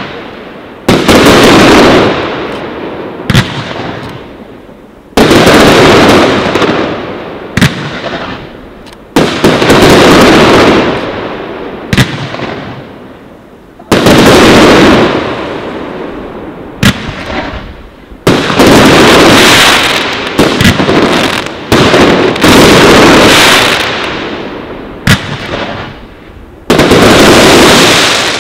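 Aerial fireworks of a large display bursting in steady succession: a loud bang every couple of seconds, each followed by a long fading tail, with a few sharp single cracks between them.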